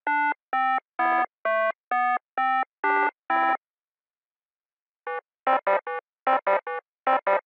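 Synthesizer tune of single, evenly spaced notes, about two a second, that stops about three and a half seconds in. After a pause of over a second, a second synthesizer tune starts, with short notes in quick groups of three.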